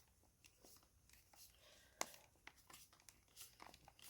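Near silence broken by faint clicks and taps of small parts being handled and fitted, with one sharper click about two seconds in.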